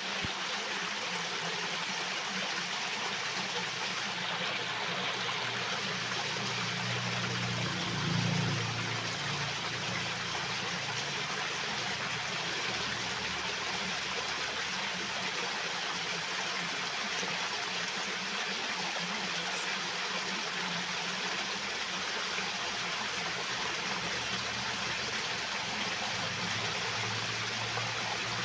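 Water flowing steadily, a continuous rushing wash, with a brief deeper swell about eight seconds in.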